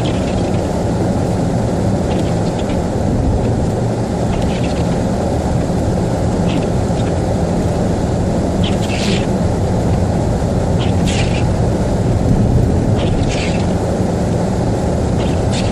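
Car driving on a snowy road, heard from inside the cabin: a steady rumble of engine and tyres, with a short high swish about every two seconds.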